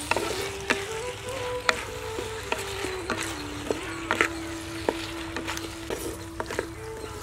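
Brinjal pieces with shallots and tomato sizzling in hot oil in a clay pot, under a steady hiss. A wooden spoon stirs them, knocking against the pot about once a second.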